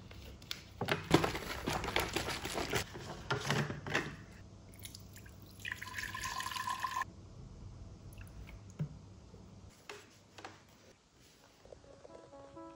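A thin plastic water bottle crackling in the hands as its cap is unscrewed, then water poured from it into the clear plastic housing of an HHO electrolysis cell for about a second and a half, a splashing fill with a steady tone in it. Music starts right at the end.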